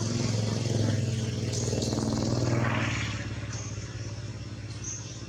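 A motor vehicle's engine passing by: a steady engine drone that grows louder to its peak about two and a half seconds in, then fades away.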